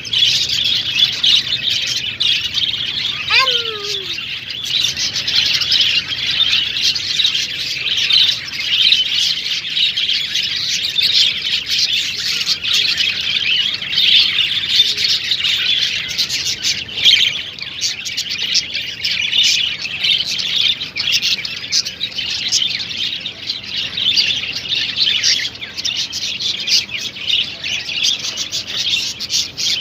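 A flock of small ornamental birds chirping at once: a dense, continuous chatter of high chirps, with one lower falling note about three seconds in.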